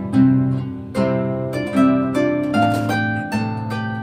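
Background harp music: a melody of plucked notes over lower bass notes, a new note struck every fraction of a second and each left ringing.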